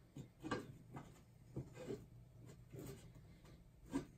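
Faint, scattered knocks and rubs of coated exhaust pipe parts being handled and fitted together, with a louder knock about half a second in and a sharp one near the end.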